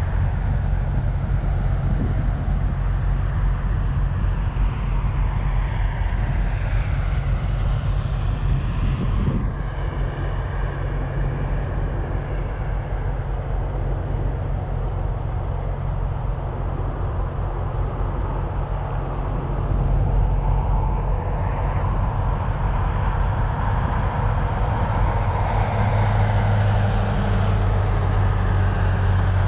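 Steady low vehicle engine hum mixed with road traffic noise. It grows a little louder about two-thirds of the way through, and a deeper engine note comes in near the end.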